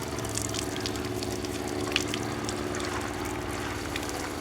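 Water running from an outdoor rinse shower and splashing, with scattered small clicks and a steady low hum underneath.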